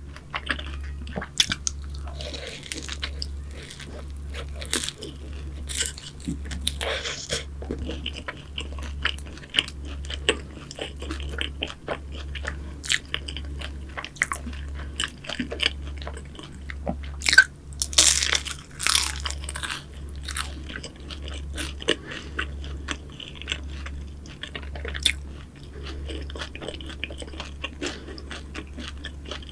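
Close-miked biting and chewing of pastry, with crisp crunches and wet mouth clicks throughout; the loudest crunches come a little past halfway.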